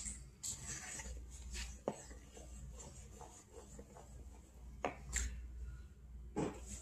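Wooden spoon stirring and scraping pancake batter (Bisquick mix, eggs and milk) in a plastic mixing bowl: soft, repeated rubbing strokes with a few sharp knocks of the spoon against the bowl.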